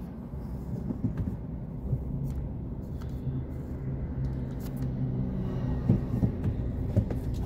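Steady low rumble and hum of a car running, heard from inside its cabin, with a few light knocks in the second half.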